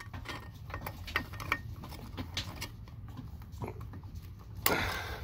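Scattered small clicks and scrapes of a light bulb and its socket being handled against a concrete cinder block, with one louder knock about four and a half seconds in.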